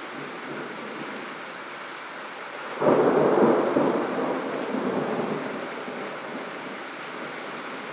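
Steady rain during a thunderstorm; about three seconds in a sudden crack of thunder breaks out, the loudest thing here, and rumbles away over the next few seconds.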